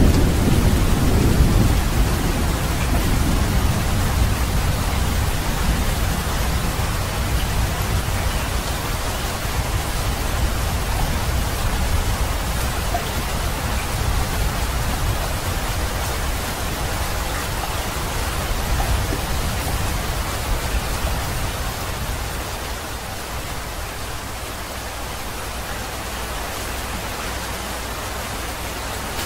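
Steady heavy rain falling, with a low thunder rumble dying away over the first couple of seconds. The rain grows a little quieter about twenty seconds in.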